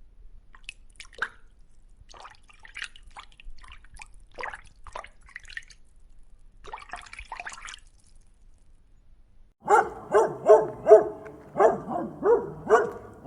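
Faint, scattered water drips and small splashes, then a dog barking rapidly about ten seconds in, roughly three barks a second.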